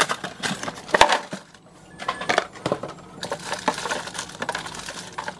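Packaged snack bars and cardboard snack boxes being dropped and set into a clear plastic storage bin on a countertop: a run of knocks, clatter and packaging rustle, with a sharp knock at the start and another about a second in.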